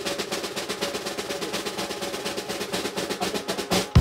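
Snare drum roll, a fast even roll of strikes, ending in a loud hit at the very end.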